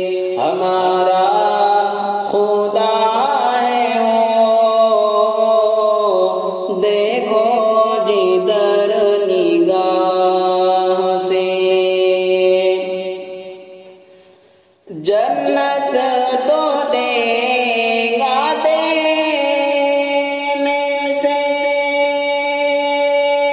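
A cappella wordless vocal interlude in a hamd: ornamented, gliding humming over a steady held vocal drone, with no instruments. It fades out about two-thirds of the way through, and a new phrase starts abruptly a moment later.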